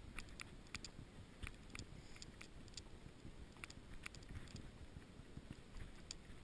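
Icelandic horse walking on a packed snow trail, heard from the saddle: faint crisp clicks a couple of times a second over a low rumble of movement and wind on the microphone.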